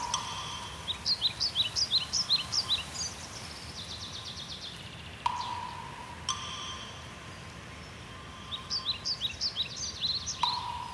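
A songbird singing two quick runs of high chirps, about a second in and again near the end, over a steady background hiss. A held tone comes in abruptly three times, about five seconds apart, under the song.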